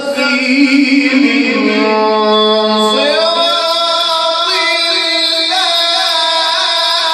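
Melodic Quran recitation (tilawah): a reciter's voice holds long drawn-out notes, stepping up to a higher, sustained pitch about three seconds in.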